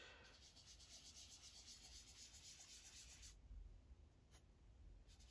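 Faint scratchy rubbing of a handheld pastel applicator tool working Pan Pastel onto paper. It eases off for a second or two past the middle, then starts again near the end.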